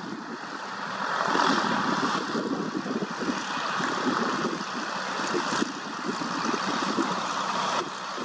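Gusty wind buffeting the microphone over the engine of a Cessna 170B taxiing at low power; the gusts swell about a second in and come and go unevenly.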